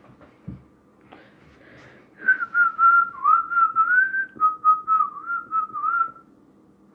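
A person whistling a short tune of many quick notes for about four seconds, starting about two seconds in.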